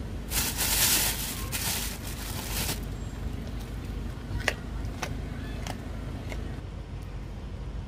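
Deer crunching a carrot at close range: a few sharp, crisp crunches spaced about half a second apart, over the steady low rumble of an idling car. Near the start, two loud rushing hisses, each about a second long, drown everything out.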